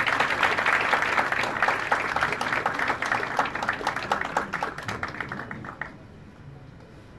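Audience applauding, a dense patter of many hands clapping that thins and dies away about six seconds in.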